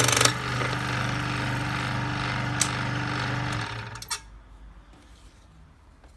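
Electric power tool running with a steady hum, then switched off about three and a half seconds in and winding down to a stop, with a sharp click just after.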